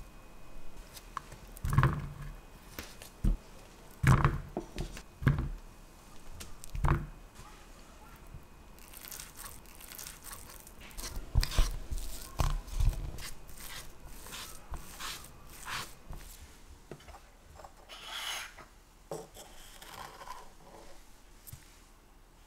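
Steamed sweet potato pieces dropped one by one into a wooden bowl with soft thuds. From about nine seconds in they are mashed with a metal fork, the tines squishing through the potato and clicking and scraping on the bowl.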